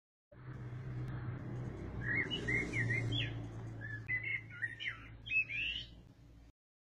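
Small birds chirping in short rising and falling notes, over a low steady hum. The sound begins suddenly just after the start and cuts off abruptly near the end.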